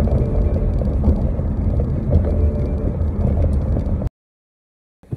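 Steady low rumble of road and engine noise inside a moving car's cabin, cutting off abruptly about four seconds in to dead silence.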